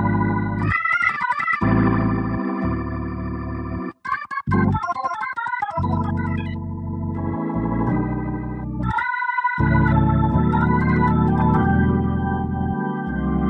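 Organ music: held chords that change every second or two over a bass line, which drops out briefly three times.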